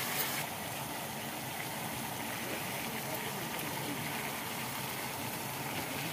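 A saucepan of liquid heating on a lit gas burner: a steady hissing, rushing noise of the flame and the simmering liquid, whose higher part eases a little about half a second in.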